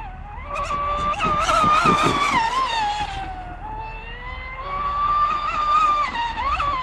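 Radio-controlled V-hull speedboat's motor running with a high whine whose pitch rises and falls as the throttle and turns change, climbing sharply near the end. A louder, rougher rushing stretch comes about two seconds in.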